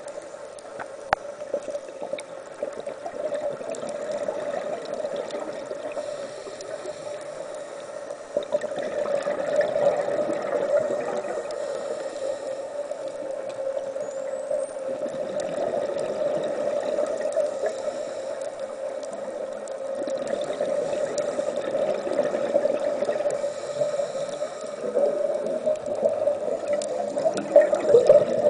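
Muffled underwater bubbling and gurgling from a scuba diver's breathing, heard through a camera's underwater housing. It swells in waves every few seconds and gets louder after about a third of the way in.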